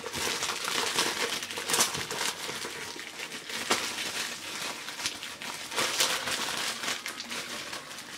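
Bubble wrap crinkling and crackling as hands unwrap a metal intake pipe from it, with irregular sharper crackles throughout.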